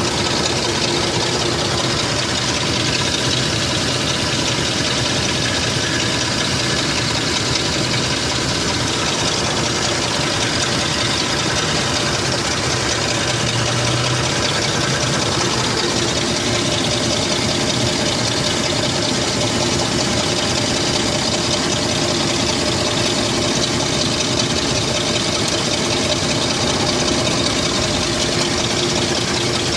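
Lincoln Aviator's 4.6-litre V8 idling steadily, heard from under the left rear wheel well near the exhaust. The owner takes the noise for a bad exhaust leak or a clogged exhaust component.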